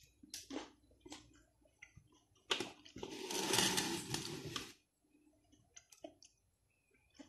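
Close-up eating sounds of pizzutella grapes being bitten off the bunch and chewed: a string of short wet mouth clicks and smacks. From about three seconds in there is a louder, dense crackling burst that lasts about a second and a half.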